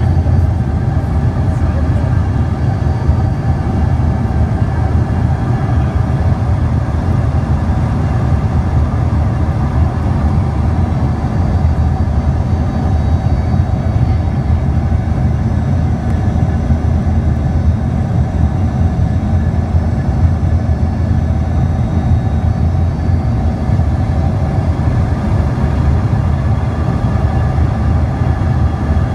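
Steady cabin noise of an Embraer 145 regional jet in flight: its rear-mounted Rolls-Royce AE 3007 turbofans and the airflow give an even low rumble with a faint steady whine above it.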